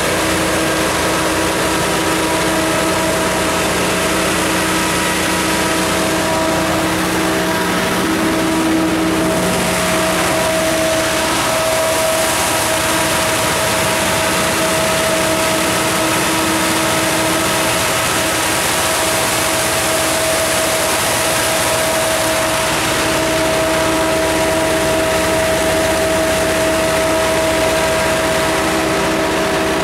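Multitek MG129 diesel generator set running steadily. Its John Deere 4045 four-cylinder diesel engine gives an even, loud engine sound with a constant hum, and the tones shift slightly about ten seconds in.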